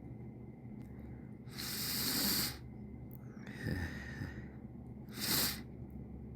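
A person sniffling, three noisy breaths in through the nose, the first about a second long and the last short and sharp, while trying to work up a sneeze that has not yet come.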